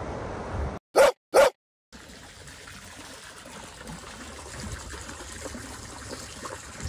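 Two short, loud dog barks about half a second apart, set in a sudden gap of silence. After them comes a quieter steady background of trickling water.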